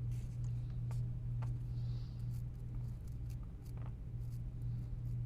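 Faint scratching and light clicks of small tools cleaning a PS5 controller's analog stick modules with alcohol, the dirt that causes the stick drift, over a steady low hum.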